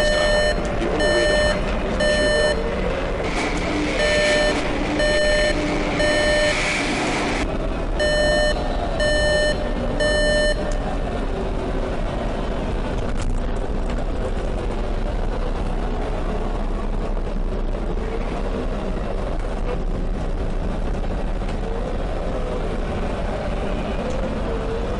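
Electronic beeping, one short pitched beep about once a second, over a steady din of city traffic. The beeping stops about ten seconds in, leaving only the traffic noise.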